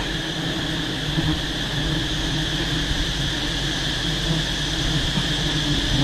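A swarm of wild giant honeybees buzzing around their disturbed nest: a steady, dense hum with an even high hiss over it.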